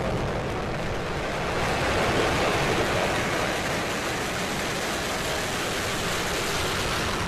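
Falcon 9 rocket's nine Merlin 1D first-stage engines at full thrust during liftoff: a steady, loud rushing roar with no break.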